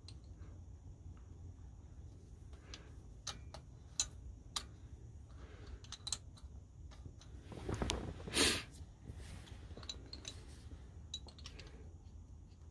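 Light metallic clicks and taps of the injector hold-down clamp and its bolt being handled and fitted by hand on a Cummins M11 diesel cylinder head, with a louder brief noise about eight seconds in.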